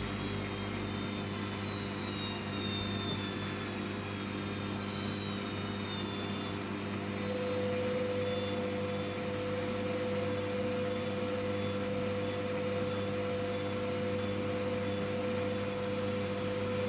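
Hoover washing machine's drum motor running in its final spin stage on a cotton 90 programme: a steady hum with a motor whine. The high whine drifts slightly lower over the first several seconds, and a steady mid-pitched tone joins about seven seconds in.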